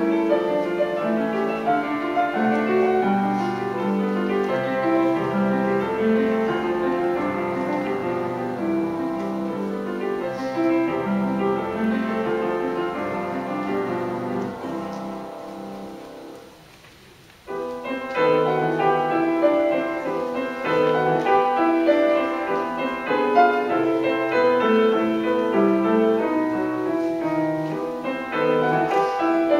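Solo grand piano playing classical music. A little over halfway through, the playing dies away almost to nothing, then resumes abruptly.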